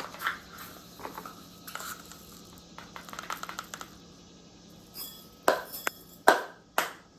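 Mustard seeds being spooned into glass jars: small quick rattles of seeds landing on glass, then a few louder, sharp clinks against the jars near the end.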